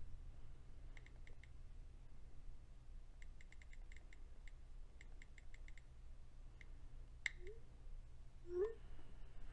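Faint bursts of quick, light clicks and taps as a knife tip works at the glass back cover of a Sony Xperia Z2 phone, with one sharper click about seven seconds in. Near the end come two brief rising squeaks.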